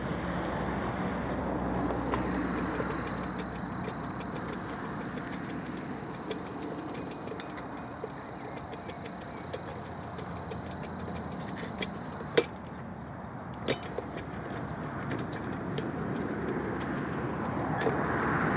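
Motorised anchor-traction machine running steadily as it crawls over loose, stony soil, with a faint high whine through much of it and two sharp knocks a little past the middle.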